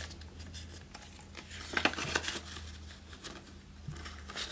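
Paper banknote rustling as a $20 bill is handled and slipped into a binder-wallet cash envelope, with scattered light crinkles and clicks and a brief louder burst of rustling about two seconds in.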